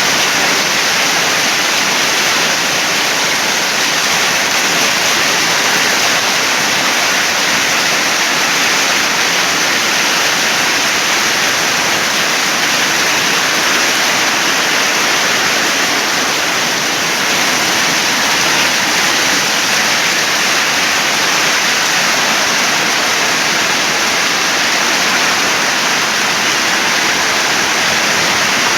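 Heavy storm rain pouring down, a loud, steady, dense hiss that does not let up.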